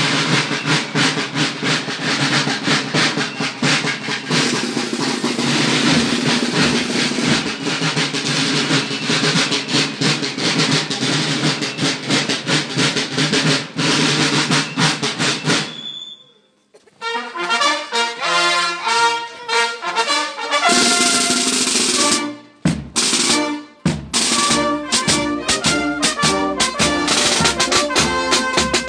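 Marching snare drums playing rolls and steady beats. About halfway through they break off, and a brass band with trumpets and tuba takes up a march over the drums.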